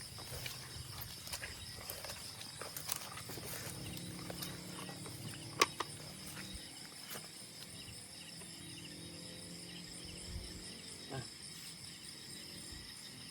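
Steady chorus of insects, with scattered clicks and knocks from handling; one sharp click about five and a half seconds in is the loudest sound.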